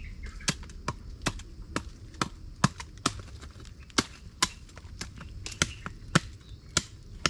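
Bolo knives hacking at bamboo to cut bamboo shoots: a quick, uneven run of sharp chops, about three a second, some much louder than others.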